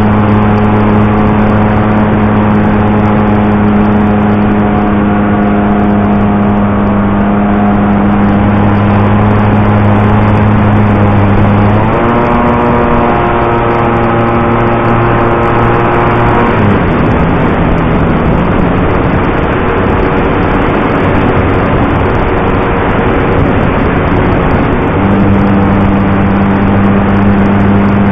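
DA-50 50cc two-stroke gasoline engine of a 25% scale clipped-wing Cub RC plane running in flight, heard close up from the nose with the propeller turning. It runs steadily at a fixed throttle, revs up about twelve seconds in, throttles back around sixteen seconds, and climbs back to the first pitch near the end.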